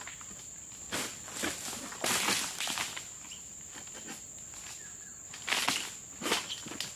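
Bursts of rustling and crunching, as of dry oil palm fronds and litter trodden and shifted by a worker at the foot of the palm, clustered around two seconds in and again near six seconds. Under them runs a steady, high-pitched insect drone.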